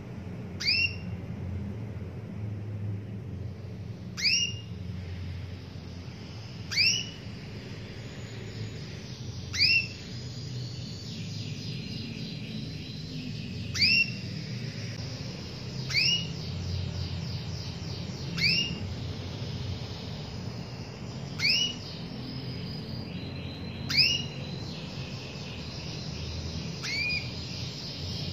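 Canary calling and singing: a sharp rising chirp about every two to three seconds, with stretches of fast trilled notes in between.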